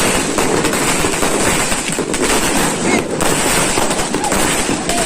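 New Year fireworks and firecrackers going off all around: a dense, unbroken crackle of many small bangs.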